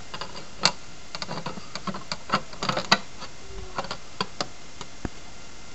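Irregular light clicks and taps on a glass terrarium as it is handled and closed. The clicks come thickest in the first three seconds, the sharpest near the start and just before three seconds, then thin out to a few, the last about five seconds in.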